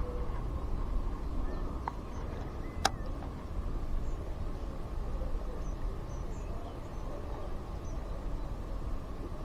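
Wind buffeting the microphone in a steady low rumble, with one sharp click about three seconds in.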